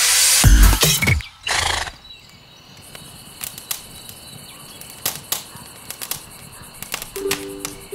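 A loud horse vocalization in the first two seconds, then a wood campfire crackling with scattered sharp pops. Background music comes back near the end.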